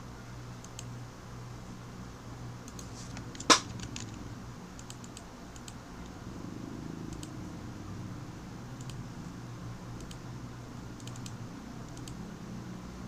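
Faint, scattered clicks of a computer keyboard and mouse over a low steady hum, with one sharper click about three and a half seconds in.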